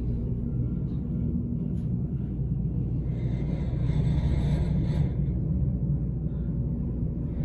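Fujitec hydraulic elevator car travelling upward, heard from inside the cab: a steady low rumble throughout, with a higher hiss joining in for about two seconds midway.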